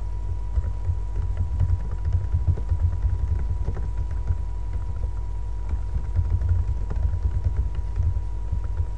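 Computer keyboard typing: a quick, irregular run of key clicks with dull thumps, over a faint steady electrical tone.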